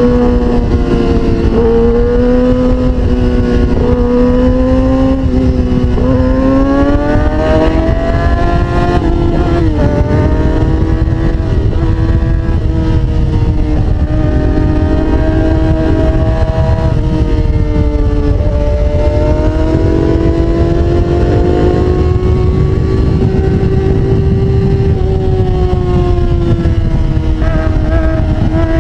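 Kawasaki Ninja sport bike's engine under way, its revs climbing and dropping several times with throttle and gear changes, over a steady low rumble of wind on the microphone.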